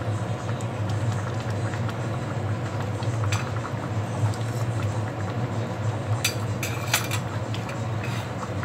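A metal spoon stirring in a cooking pan, clinking against it a few times: once about three seconds in and twice close together around six to seven seconds. A steady low hum runs underneath.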